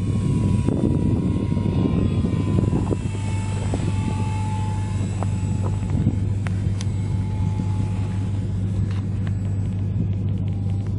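Radio-controlled PC-6 Porter model plane's motor and propeller at low throttle: a thin whine that slowly falls in pitch as the plane comes in slow with flaps down to land, over a steady low rumble.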